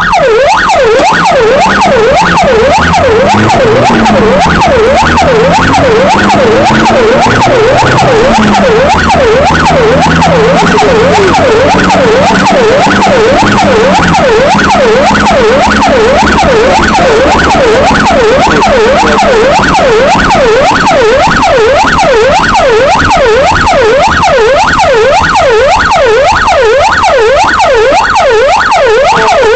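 Emergency vehicle's electronic siren heard loud from inside the cab, running in a fast wail (yelp) that rises and falls rapidly and evenly.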